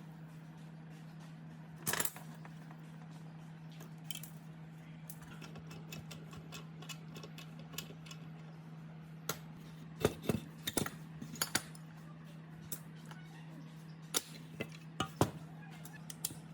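Scattered sharp clicks and clinks of small metal parts being handled: one knock about two seconds in, then clusters of clicks past the middle and near the end, over a steady low hum.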